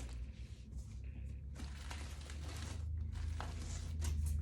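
Faint rustling and a few light clicks of yarn skeins and their packaging being handled, over a steady low hum.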